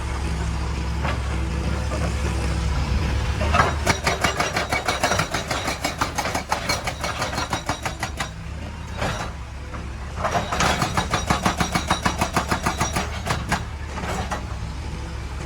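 Hitachi EX200 excavator's diesel engine running steadily while a hydraulic rock breaker hammers in two bursts of rapid blows, about nine a second, each lasting several seconds with a short pause between.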